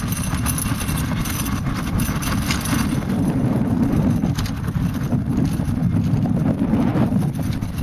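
Wind buffeting the microphone: a steady low rumble with light crackling over it, a little stronger in the middle.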